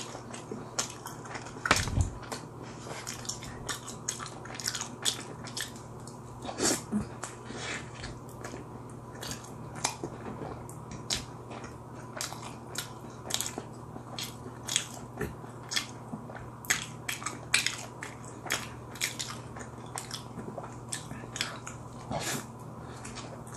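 Close-miked chewing and biting of a slice of pizza: wet clicks and crunches, several a second, over a low steady hum.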